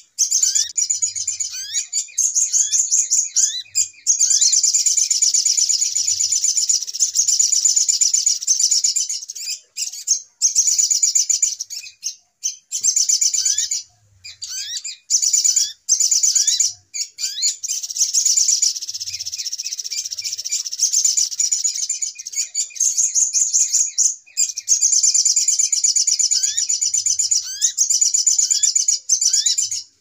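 Bird-lure recording of sogok ontong sunbirds calling excitedly: dense, rapid, high-pitched twittering and trills with short rising chirps, broken by a few brief pauses. It is an agitated 'ribut' lure call, played to draw sunbirds in for trapping.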